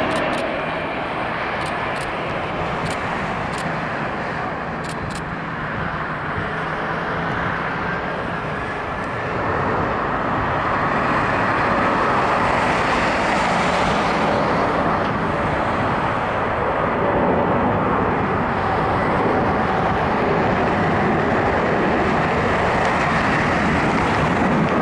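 Jet engines of a Boeing 767-238(ER) running at low power as the airliner taxis after landing, a steady noise that swells about ten seconds in and then holds.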